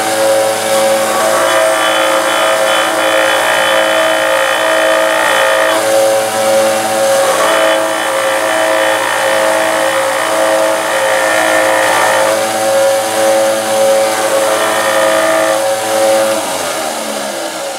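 Delta belt and 5-inch disc sander running with a steady motor whine and the rasp of a carved wooden head held against the spinning disc, sanding its bandsawn top flat. Near the end the motor winds down.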